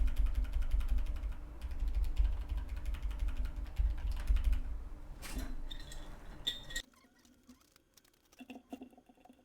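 Mechanical keyboard switches in a hot-swap board clicking rapidly in quick succession over a low rumble for about five seconds. A few louder clacks follow, then only faint scattered clicks.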